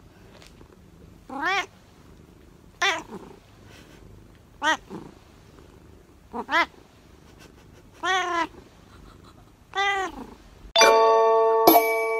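Long-haired black-and-white cat meowing six times, short meows that rise and fall in pitch, about every one and a half to two seconds. Near the end a chime of several steady ringing tones comes in.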